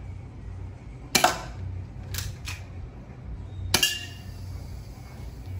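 Taurus PT92 airsoft pistol firing two shots about two and a half seconds apart, each a sharp crack, with two fainter clicks between them.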